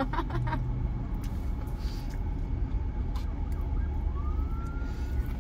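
A siren starts to wail about four seconds in, a single tone rising in pitch, over a steady low rumble heard from inside a car's cabin.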